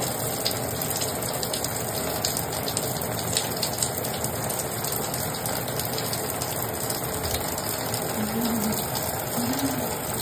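Shower water running steadily, the spray pouring into a bathtub.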